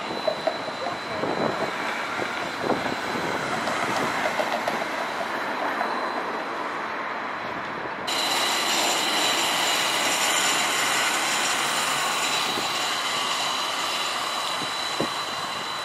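Battery-powered streetcars on city street track: in the first half one approaches amid traffic with a few sharp clicks, and after an abrupt cut about halfway through one passes close by with a steady high-pitched whine over wheel and rail noise.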